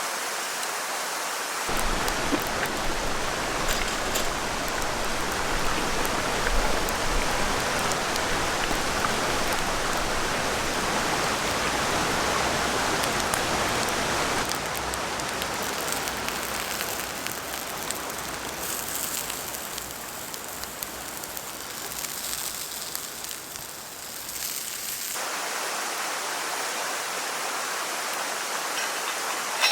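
Steady rushing water noise, changing abruptly in character about two seconds in and again near the end, as between separate recordings.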